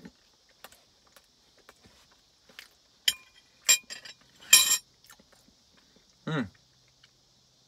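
Quiet mouth sounds of chewing a spoonful of thick cookie dough, with small clicks throughout. A metal spoon clinks against the jar twice about three seconds in, there is a louder short rustle a little later, and a brief low "mm" comes near the end.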